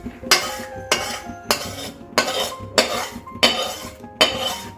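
Metal spatula stirring in a metal cooking pan, scraping and knocking against it in a steady rhythm, about seven strokes at a little more than one a second, each with a short metallic ring.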